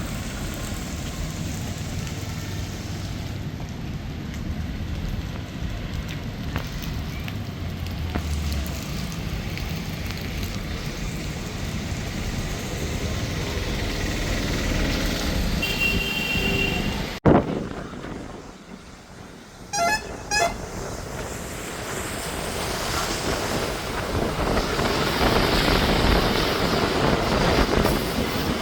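Steady road-traffic and wind noise, with a few short vehicle-horn toots a little past halfway. The sound cuts abruptly and dips just after the toots, then builds again toward the end.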